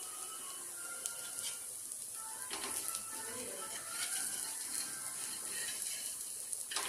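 Dosa batter sizzling on a hot griddle: a steady, quiet, fine crackling hiss with a few faint clicks.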